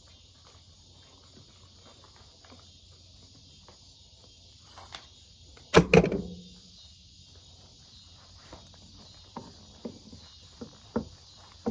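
Steady high insect chorus, with scattered light footsteps and one loud double bang about six seconds in that rings briefly.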